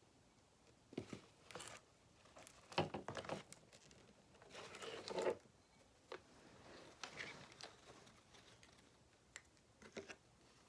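Light handling noises from hands-on craft work: scattered small taps and clicks, with a brief rustle about halfway through that is the loudest sound.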